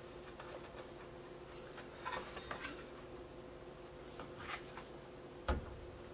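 Faint clicks and rustles of hands handling parts at the sewing-machine motor's pulley while the drive belt is fitted, with a sharper knock near the end.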